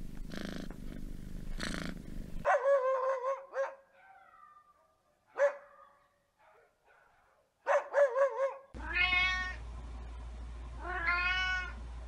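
Short animal clips: a cat purring in slow rhythmic swells, then a dog giving several short, high whining calls, then a cat meowing twice, each meow rising in pitch.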